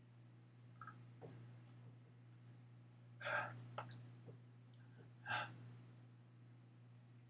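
Two short, breathy exhalations from a man, about two seconds apart, over a steady low electrical hum.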